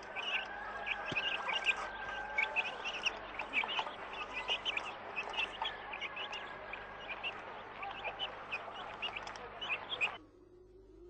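Many birds chirping and calling in a dense, busy chorus, which cuts off suddenly near the end.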